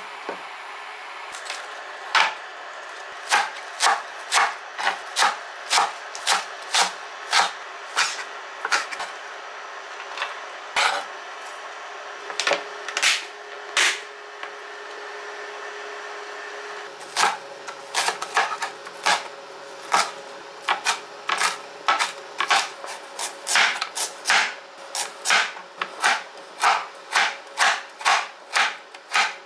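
Ceramic-coated kitchen knife chopping vegetables on a wooden cutting board: sharp knocks of the blade on the board, about two a second. After a break of a few seconds midway, quicker chopping of carrot.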